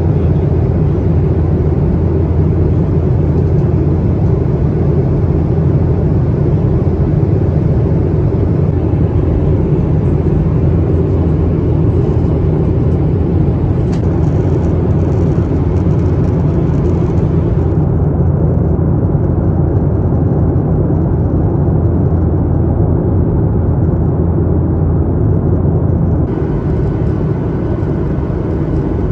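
Steady cabin noise of a Boeing 737-800 in cruise: the even rush of airflow and the CFM56 engines heard from a window seat, loud and low. The upper hiss drops away for several seconds past the middle, then returns.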